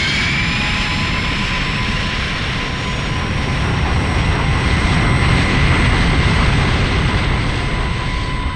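Deep, steady engine rumble of a spaceship flying past, with a thin steady whine above it. It swells in the middle and eases off a little near the end.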